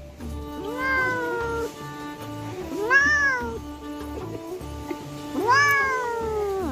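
Domestic cat meowing three times, each meow drawn out and rising then falling in pitch, over background music with a low steady beat.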